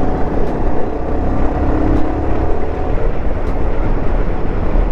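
Bajaj Pulsar 220F single-cylinder motorcycle ridden over a rough stretch of road, heard from the rider: a heavy wind rumble over the engine's note, with a few light clicks. The engine's note drops away about three seconds in.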